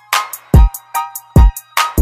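Background music with a drum-machine beat: deep kick drums and short, ringing percussion hits in between.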